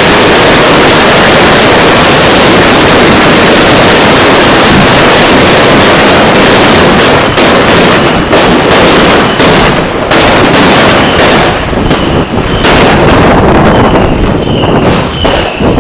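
A homemade firecracker mat detonating: a dense, continuous barrage of firecracker bangs and crackle. After about six seconds it thins into separate loud bangs, with short whistles near the end.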